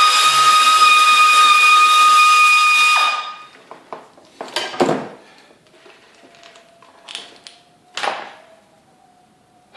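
Hand-held air tool running for about three seconds with a loud air hiss and a steady high whine, spinning out a bolt on the engine's top end. It cuts off sharply, followed by a few light metallic clinks.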